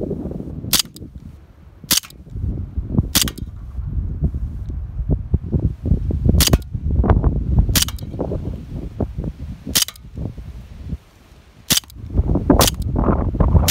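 Colt M45 CQBP CO2 blowback steel BB pistol firing about eight single shots at uneven intervals, each a sharp crack, over heavy wind noise on the microphone.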